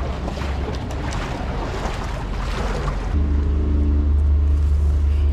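Wind on the microphone and water lapping. About three seconds in, a steady low engine hum starts and becomes the loudest sound.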